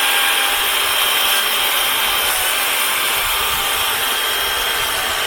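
DeWalt 60V battery-powered chainsaw running at full speed and cutting through a cedar log. The electric motor gives a steady high whine under the noise of the chain chewing through the wood.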